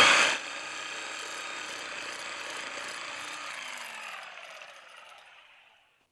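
Sawzall reciprocating saw cutting through a whitetail deer's neck to take the head off. Its motor runs steadily for about four seconds, then fades out over the next two.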